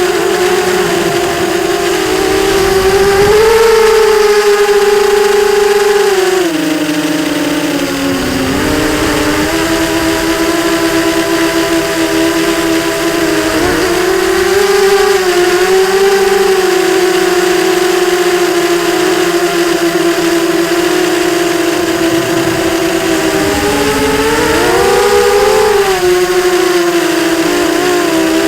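ZMR 250 FPV racing quadcopter's Sunnysky 2207 brushless motors and propellers whining, the pitch gliding up and down with throttle. It drops about six seconds in, climbs back, and rises again near the end.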